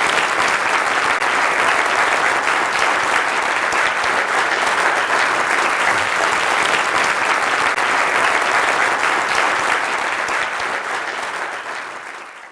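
Audience in a lecture hall applauding, a steady clatter of many hands clapping that fades out near the end.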